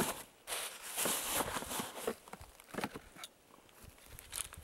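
Rustling and crinkling of packaging being handled, plastic bags and a cardboard box, with a few light knocks and clicks. Busiest in the first second and a half, then quieter and more scattered.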